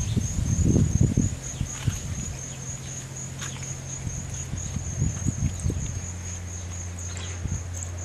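A cricket chirping on and on in a high, evenly pulsing trill, over a low steady hum. Muffled rumbles on the microphone in the first second or so and again about five seconds in are the loudest sounds.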